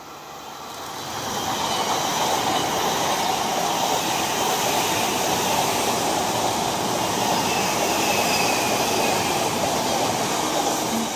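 Odakyu 5000 series electric commuter train passing close at speed: the rush of wheels on rail and running gear builds over about two seconds, then holds loud and steady, with a faint falling whine midway. A red Romancecar passes on the far track near the end, its sound merging with the first train's.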